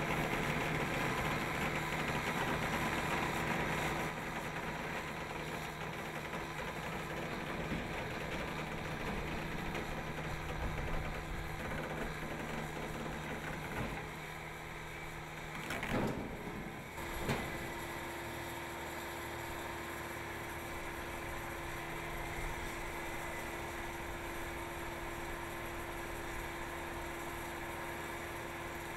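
Eagle OTR debeader running with a steady machine hum as its arm pulls the steel bead bundle out of an OTR tire. About halfway through there is a brief surge and a knock, and after it the hum's pitch changes.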